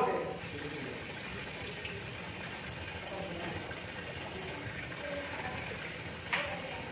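Steady rushing hiss and churning of ground soybean mash boiling in a large vat.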